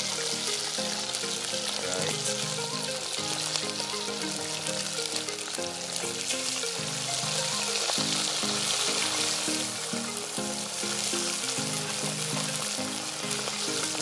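Whole fish deep-frying in a pot of hot oil, a steady crackling sizzle, with background music playing a melody underneath.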